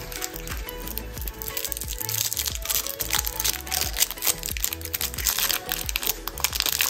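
Crinkling of a wrapped chocolate's paper-and-foil wrapper as it is peeled open by hand: a stream of small crackles, over background music.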